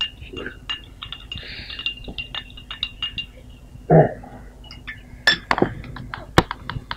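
Glasses and dishes clinking in a string of short, sharp clinks. A brief voice sounds about four seconds in.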